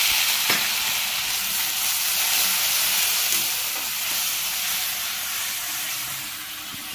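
Onion and spice masala sizzling loudly in hot oil in a kadai, just after a splash of water has gone in. The sizzle fades steadily as the spatula stirs, with a faint tick from the spatula now and then.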